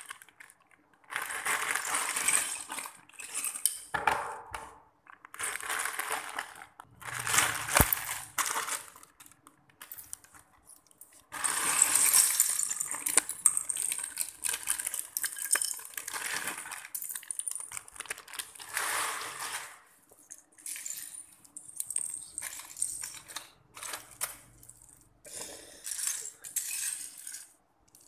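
Loose plastic Lego pieces clattering and rattling on a tiled floor in repeated bursts of one to several seconds as they are tipped out and pushed around by hand.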